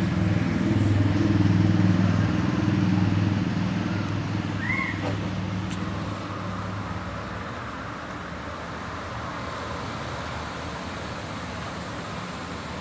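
An engine running steadily with a low drone, loudest in the first few seconds, then dropping and holding at a lower level. A faint short rising chirp sounds about halfway through.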